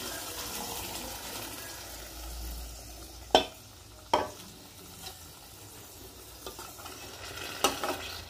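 Thick ground masala paste poured over paneer frying in ghee in a steel bowl, with a soft sizzling hiss. About three and a half and four seconds in come two sharp metallic knocks on the steel bowl, and near the end a steel spoon clinks against it as stirring begins.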